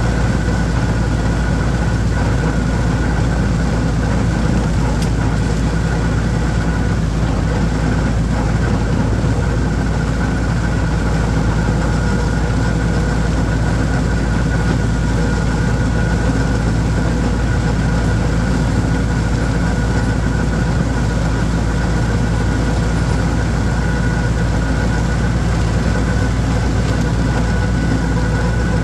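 Holder compact tractor's diesel engine running at a steady speed while mowing, with no change in pitch or load.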